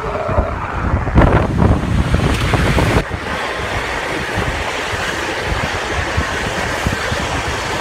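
Ride-on miniature train running along its track, its rumble mixed with wind buffeting the microphone on the open car; heavier for a couple of seconds near the start, then steady.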